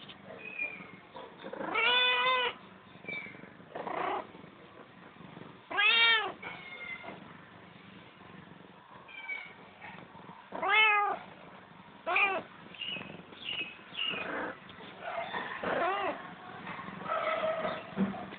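Kittens meowing while play-fighting: about five loud meows, each rising and falling in pitch, with fainter short squeaks between them.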